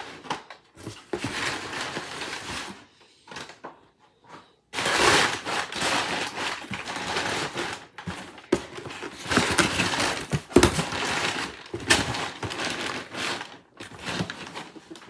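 Cardboard shipping box and plastic-windowed doll packaging rustling and crinkling as they are handled, in irregular spells broken by a few sharp knocks.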